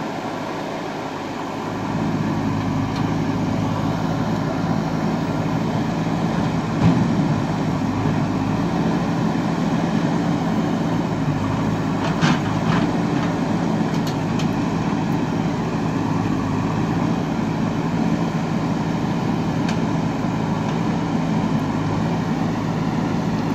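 JCB backhoe loader's diesel engine running steadily, its revs picking up about two seconds in, with a couple of short knocks about a third of the way through and about halfway.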